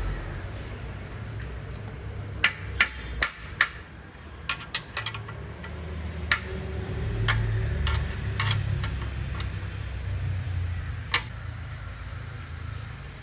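Hand tools tapping and knocking on metal parts: about a dozen sharp, irregular strikes, bunched in the first half with a last one near the end, over a steady low hum.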